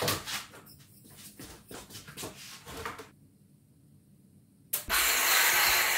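A few knocks and clicks as the trim board is handled on the sawhorse, then about five seconds in a circular saw starts suddenly and runs loud and steady, freehand ripping a wooden trim board down to width.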